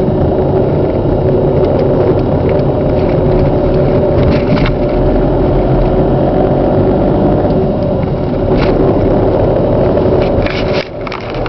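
A car accelerating from about 1500 rpm, heard from inside, with the noise that the owner suspects comes from a damaged clutch running through it as steady tones over the engine rumble. Near the end the sound drops away, with a few clicks.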